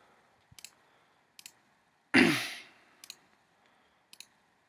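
About four computer mouse clicks, each a quick double tick of press and release, placing pen-tool anchor points. A loud exhale into the microphone a little over two seconds in is the loudest sound.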